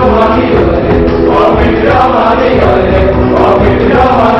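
A group of voices singing a chant together, the notes held and moving in a steady tune.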